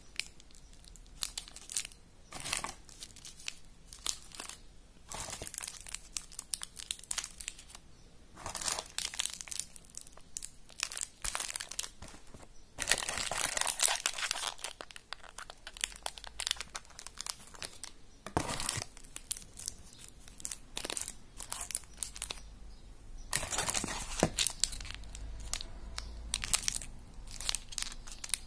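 Plastic and foil wrappers of individually wrapped chocolate bonbons crinkling as the candies are picked out of a cardboard box and handled. The crinkling comes in irregular bursts, with denser spells of rustling about halfway through and again near the end.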